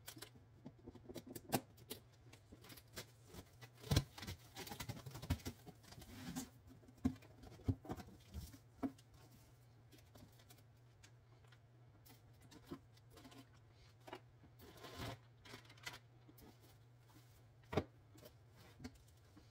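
A cardboard TV shipping box and its packing being handled and opened: scattered clicks, knocks, scrapes and rustles, busiest in the first half, over a steady low hum.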